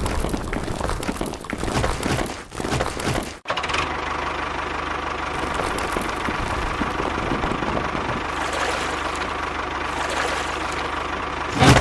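A small motor running steadily, with an even hum, after a noisier, more uneven stretch in the first few seconds.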